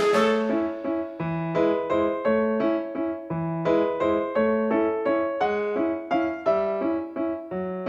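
Background music: a piano-like keyboard playing a light, bouncy melody over a regular bass line.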